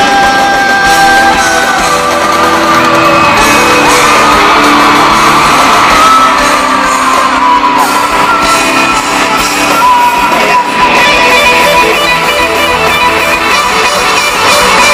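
Live pop-rock band playing in a large arena: a male lead vocalist sings long held notes over the band, with electric guitar coming forward near the end. The recording is loud and echoing from the hall.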